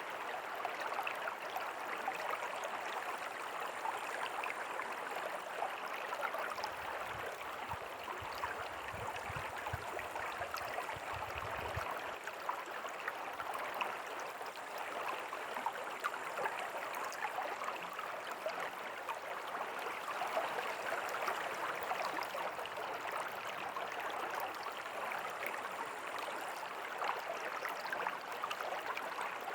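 River water flowing steadily, an even rushing and burbling with no let-up. A low rumble joins in for a few seconds near the middle.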